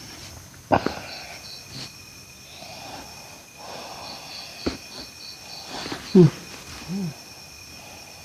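Snoring in sleep: slow, wheezy breaths broken by short sharp snorts, the loudest a little past six seconds in. Crickets chirp faintly and steadily behind it.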